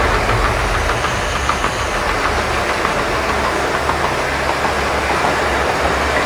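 Gas torch flames running steadily under an electric car's battery pack, with continuous crackling and a low rumble; the torch is heating the pack to drive it into thermal runaway.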